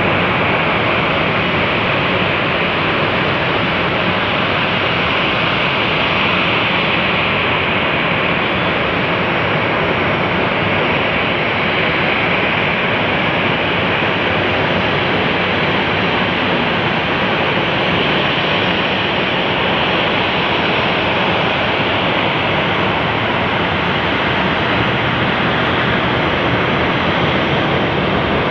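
Jet airliner engines running: a steady, loud rushing noise, brightest in the upper mid-range, that swells slightly now and then without a clear rise or fade.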